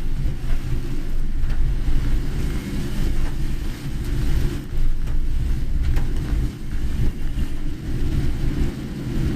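Car driving on a rain-soaked road, heard from inside the cabin: a steady low road and engine rumble with an even hiss of tyre spray and rain over it.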